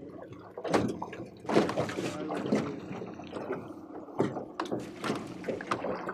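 Lake water slapping against the hull of a small aluminum jon boat, with a few sharp knocks on the hull.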